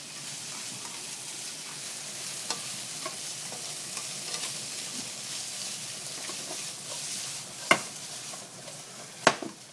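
Scallops, bacon and garlic sizzling in olive oil in a frying pan as they are stirred, with a few light clicks against the pan. Two sharper knocks come near the end.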